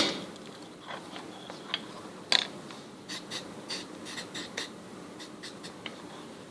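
Small handling clicks and taps as a circuit board kit and its parts are worked on at a bench: a sharp click about two seconds in, then a quick run of lighter ticks.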